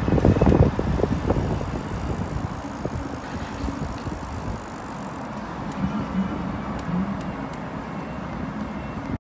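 Wind buffeting the microphone, heaviest in the first second or so, over the steady rolling noise of a Riese & Muller Packster 40 cargo ebike riding on a paved path.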